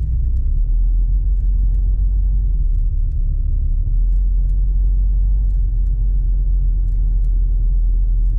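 Steady low rumble of a 1991 Volvo 940's engine and tyres heard from inside the cabin as the car drives slowly.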